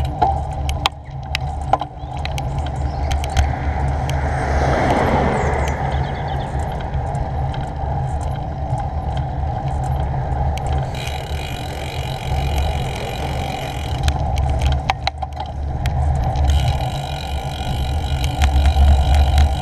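Riding noise from a GoPro on a moving bicycle: wind buffeting the microphone as a steady low rumble, tyres on rough tarmac, and scattered knocks from bumps in the road. A brief rushing swell rises and fades about five seconds in.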